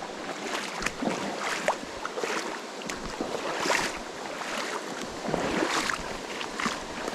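Rushing river water splashing over rocks, a steady hiss with irregular splashes.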